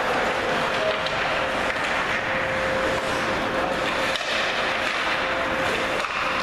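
Ice hockey game sound in an indoor rink: a steady scraping wash of skates on the ice, with a faint steady hum underneath.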